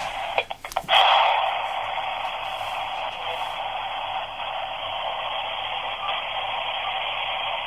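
Spirit box scanning radio stations: a steady hiss of static, broken by a few sharp clicks and a louder burst of static about a second in.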